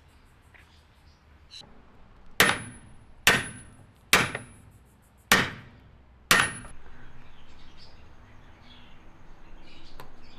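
Five sharp hammer blows on metal, roughly a second apart, each with a brief ring: a new ball joint being knocked into a control arm.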